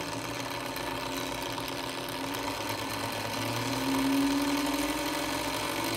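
24-volt DC gear motor running on a bench power supply, speeding up and getting louder as the voltage is turned up, its hum rising slightly in pitch. The gearbox sounds a bit crunchy, which the owner thinks may mean it needs grease.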